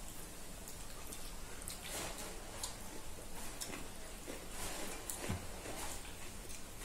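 Eating by hand: fingers mixing rice and curry on steel plates and mouths chewing, a scatter of small wet clicks and smacks over a steady low hum.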